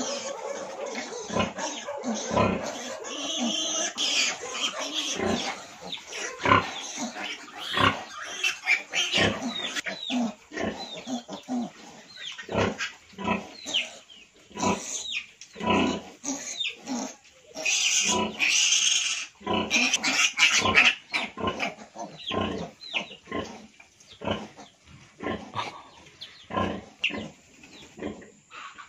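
A sow and her suckling piglets grunting in a steady run of short calls, one or two a second, with louder, higher-pitched squealing about two-thirds of the way in. The sow's rhythmic grunting goes with nursing.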